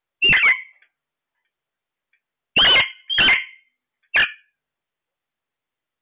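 Alexandrine parakeets giving short, harsh squawks: two close together at the start, two more about two and a half seconds in, and a single one at about four seconds.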